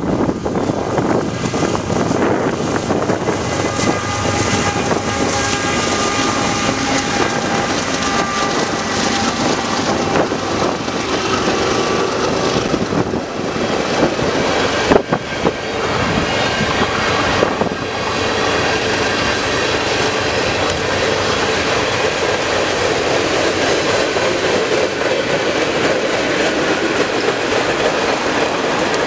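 CN freight train's diesel locomotives running as they pass close by, then a long string of freight cars rolling past with steady wheel-on-rail noise. A single sharp knock about halfway through.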